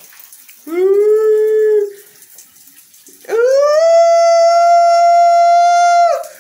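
Two long, loud howling cries: a shorter lower one about a second in, then a higher one that swoops up, holds steady for about three seconds and drops off at the end.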